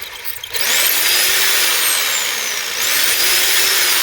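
Hammer drill with a carbide masonry bit boring into concrete, a loud grinding rattle. The motor spins up about half a second in, its whine slowly sinking as the bit bites, then spins up again near three seconds.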